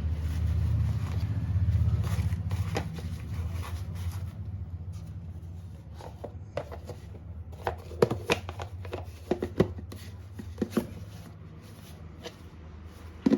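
Handling noises while coriander is being prepared for storage: light rustling with scattered sharp clicks and taps, a cluster of them about two-thirds of the way through and one more near the end, over a steady low hum.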